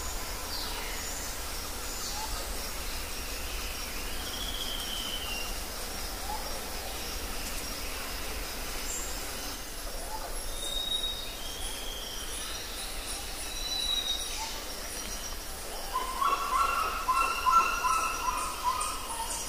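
Birds calling: scattered short whistled chirps over a steady background hiss, with a louder rapid trill near the end.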